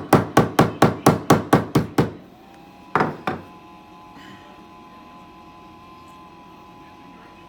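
Hammer striking a rebuilt 18650 lithium-ion battery pack to knock it together: quick blows, about four a second, for about two seconds, then two more knocks about a second later. After that only a faint steady hum.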